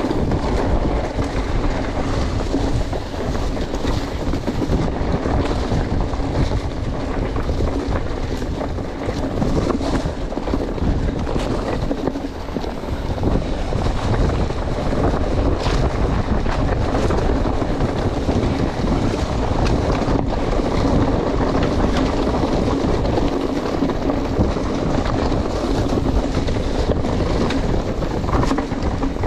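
Wind buffeting the microphone over the rumble of a mountain bike riding a dirt trail, with frequent small rattles and knocks from the bike over rough ground.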